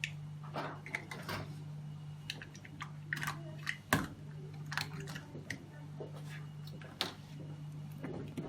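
Scattered light clicks and taps of plastic tubing and connectors being handled and fitted to the analyzer's reagent lines, with a sharper click about 4 seconds in and another near 7 seconds, over a steady low hum.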